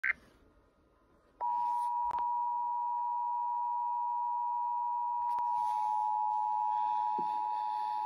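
Emergency Alert System attention signal: the steady two-tone alarm, two close pitches sounded together, starting about a second and a half in after a brief blip. It comes through a laptop speaker playing a radio stream and marks the start of an AMBER Alert broadcast.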